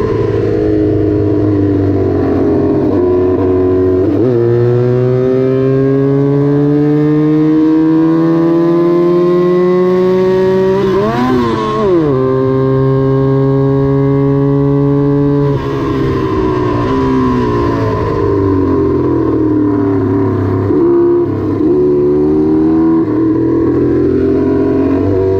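Small vintage Honda parallel-twin racing motorcycle engine run hard. Its pitch climbs steadily for several seconds, drops sharply and recovers about halfway through, then falls back a few seconds later and rises and falls with the throttle.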